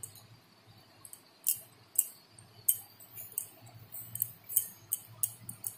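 A steel spoon clicking and scraping as it presses spice paste into a slit eggplant and scoops more from a plastic bowl: a string of irregular light clicks.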